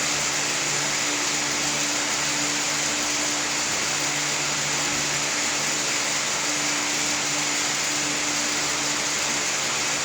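A fan running steadily: an even hiss with a faint low hum underneath.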